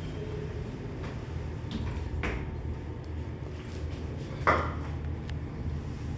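Steady low hum with a few sharp metallic clanks and clicks from an Otis traction elevator, the two loudest clanks about two seconds and four and a half seconds in, each ringing briefly.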